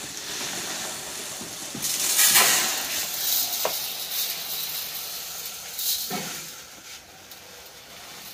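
Granular fertilizer pouring out of a woven plastic sack into an aluminium basin: a rushing hiss with the sack's plastic rustling. It is loudest about two seconds in and again briefly around six seconds.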